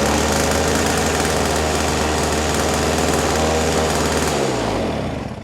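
Toro Snowmaster 20 snow thrower's two-stroke engine running steadily, then shut off about four and a half seconds in, its pitch sliding down as it winds to a stop. This is the ignition-switch kill working again now that its ground wire is reconnected.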